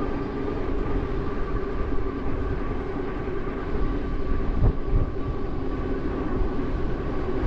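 Juiced Scrambler electric bike's motor whining steadily while riding at speed, over low wind rumble on the microphone, with a single knock about halfway through.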